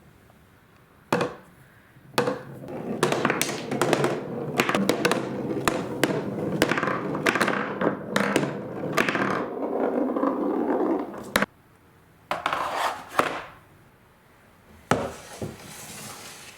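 Marbles rolling and clattering along a wooden marble run, with many sharp clacks over a steady rolling sound. The rolling runs for about nine seconds and cuts off suddenly, followed by two shorter bursts of rolling near the end.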